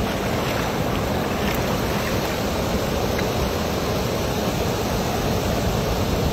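Steady rushing water noise as a wet cast net is hauled up by hand through knee-deep river water.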